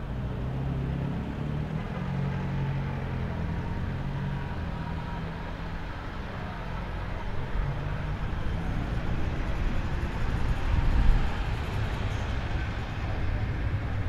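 Several classic cars' petrol engines running at low revs as they roll slowly past in a line, with a brief louder moment about eleven seconds in.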